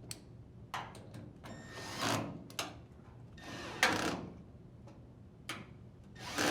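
Drill driver running in short bursts to tighten the dryer door hinge screws, three times, with small clicks of the bit and the screws in between.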